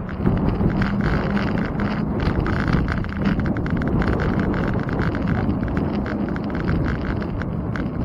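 Bicycle rolling over pavement: steady wind and tyre rumble with frequent small rattles and knocks from bumps in the road.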